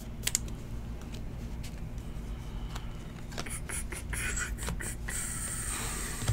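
Trading cards being handled and flipped through by hand: scattered light clicks and slaps of card stock, then a denser rustling of cards sliding over each other about five seconds in.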